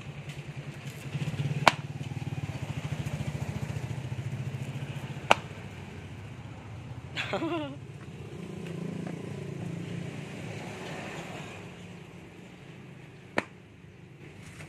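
A small engine running with a steady low pulse, louder for the first few seconds. Three sharp clicks break in about two, five and thirteen seconds in, and a short falling squeal comes about seven seconds in.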